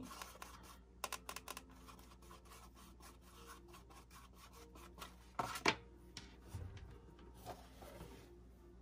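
Faint scrubbing, tapping and scraping of a paintbrush mixing acrylic paint on a plastic palette, with one louder knock a little over five seconds in as things are handled on the desk.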